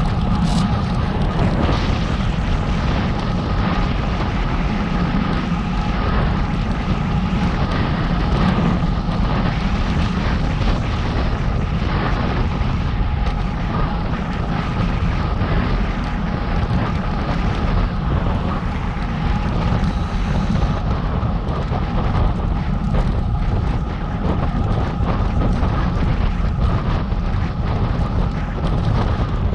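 Continuous wind buffeting on the microphone of a moving bike's camera, mixed with road noise, with two faint steady whining tones underneath.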